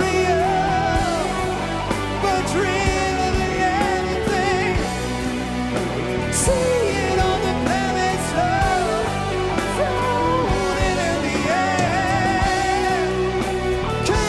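Progressive rock band playing an instrumental passage: a lead melody bends and wavers over sustained keyboards, bass and drums with occasional cymbal crashes.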